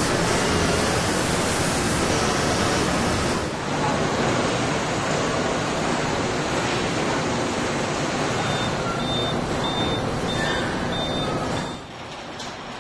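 Loud steady hiss of industrial spraying: a chemical wash spray hissing over a part, then, after a cut at about three and a half seconds, the duller hiss of a robotic spray-paint booth. Near the end a run of about six short high beeps sounds, and the noise drops away after a cut.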